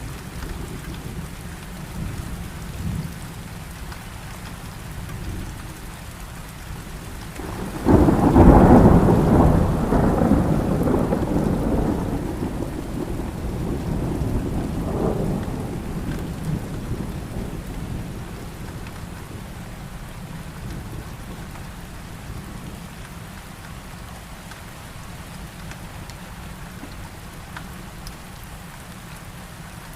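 Thunderstorm: steady rain throughout, with a sudden loud thunderclap about eight seconds in that rolls on, swells again briefly, and fades away over roughly ten seconds.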